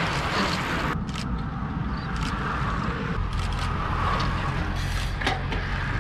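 Steady wind rumble on the microphone, with road bicycles riding close past on asphalt.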